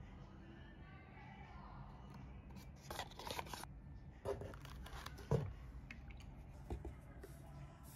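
Unboxing handling noise: rustling of tissue paper and plastic wrap in a cardboard box about three seconds in, then a few knocks as items are moved, the loudest a low thump a little after five seconds.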